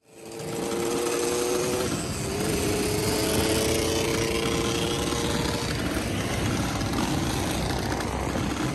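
Several dirt bike and ATV engines running at high revs together, a steady high buzzing drone that fades in over the first half second.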